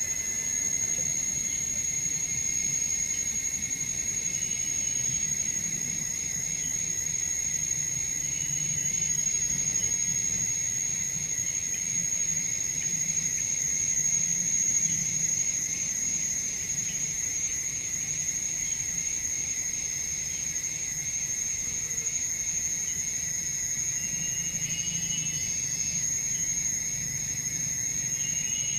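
Insects calling continuously, a steady high-pitched drone with a second lower steady tone beneath it, and a few short chirps near the end.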